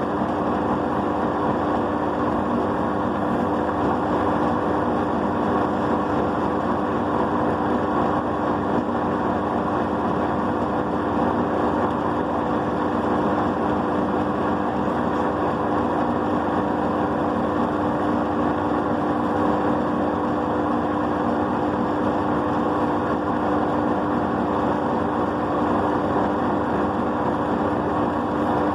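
Ultra Grind+ Gold tabletop wet grinder running: a steady motor hum with two held tones over an even grinding rush, unchanging in level.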